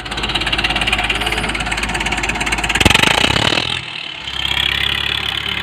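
Old Hindustan diesel tractor engine running with a rapid, even knocking beat. It gets louder about three seconds in, then dips briefly before carrying on.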